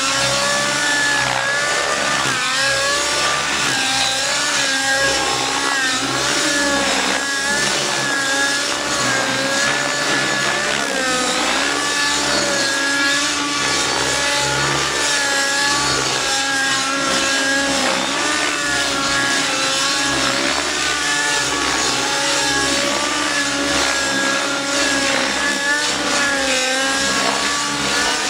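Outrage Velocity radio-controlled helicopter's glow-fuel engine and rotor running hard through aerobatic flying. The pitch keeps swinging up and down as the manoeuvres change the load.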